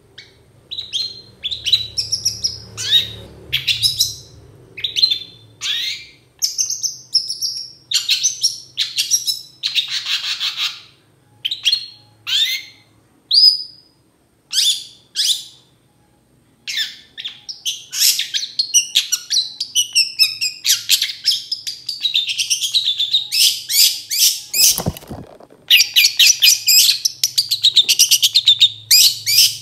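Caged long-tailed shrike (cendet) singing: loud, sharp call notes, one at a time with short gaps, that run about halfway through into a fast, unbroken chattering song.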